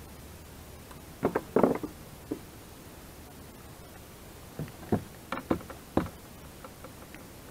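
Scattered sharp knocks and rattles of fishing gear and a landing net handled against a plastic fishing kayak. They come in two short clusters, one about a second in and another around five to six seconds in.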